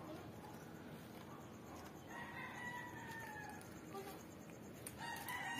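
A rooster crowing: one long drawn-out crow about two seconds in, and a second crow starting near the end.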